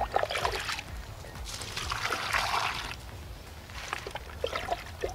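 Water scooped from a plastic bucket with a small container and poured over hollow cement blocks, splashing and trickling; the longest pour comes about a second and a half in and lasts over a second. The blocks are being hand-watered to cure them so they set strong.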